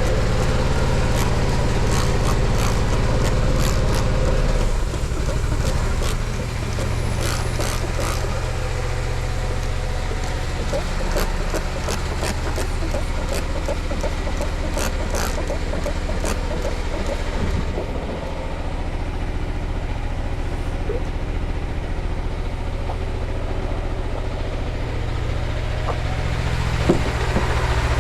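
Vehicle engine running steadily, with scattered sharp clicks over it, mostly in the first half.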